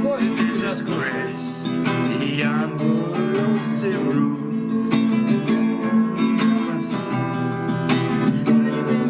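Acoustic guitar strummed in a steady rhythm, with a man's voice singing along over it in the first few seconds.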